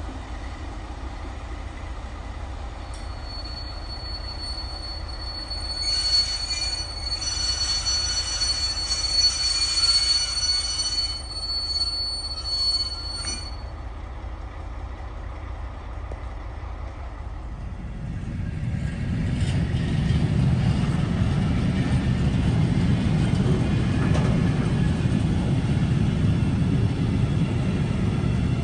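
Railway wheels on rails during slow rail movements, with a steady high-pitched wheel squeal lasting about ten seconds over a low rolling rumble. Past the middle a deeper, louder rumble builds and holds.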